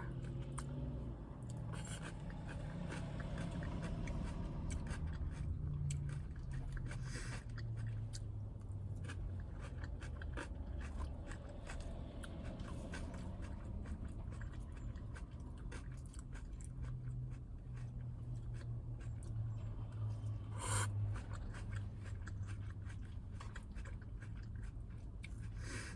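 A person chewing and crunching a salad close to the microphone, with many small crisp crunches.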